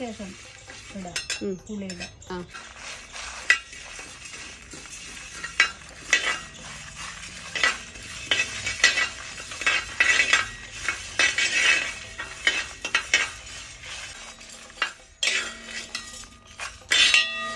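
A utensil stirring coriander seeds, black pepper, dried red chillies, asafoetida and urad dal as they roast in a pan, scraping against the pan in irregular strokes that are busiest in the middle stretch. The spices are not yet fully roasted.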